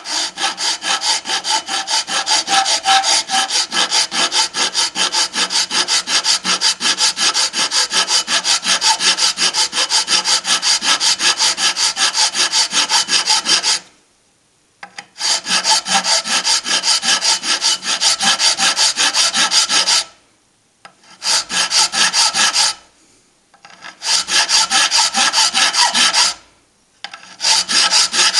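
A flat hand file scraping back and forth over the edge of a cast aluminium Mini cylinder-head plate, in quick even strokes about three a second, stopping briefly four times. The damaged edge is being dressed before repair.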